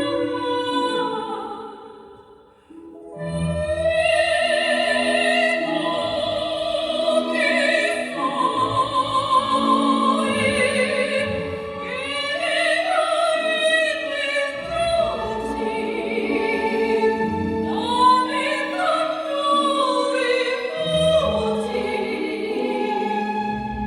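Popera singing with wide vibrato over an instrumental accompaniment with a steady low beat. The music dips to near quiet about two seconds in, then picks up again and carries on.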